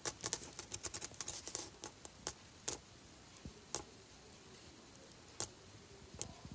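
Light, irregular clicks of long fingernails on a phone, a quick flurry in the first two seconds, then a few scattered taps.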